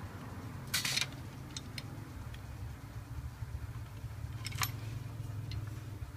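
Small handling sounds of a thin jumper wire being worked over a phone circuit board: a short rustle about a second in, then scattered small ticks and clicks, the sharpest about four and a half seconds in. A steady low hum runs underneath.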